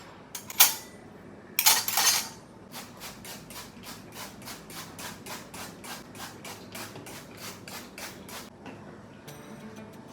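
Kitchen utensil sounds: a sharp knock, a short clatter, then a steady run of rhythmic strokes, about three a second.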